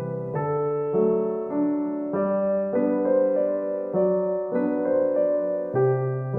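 Background music: a gentle piano or electric-piano tune, a new chord or note about every half second.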